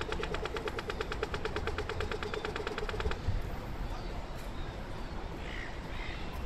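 Australian pedestrian crossing signal giving its rapid electronic ticking, the audible 'walk' signal, which stops about three seconds in, over low city traffic noise.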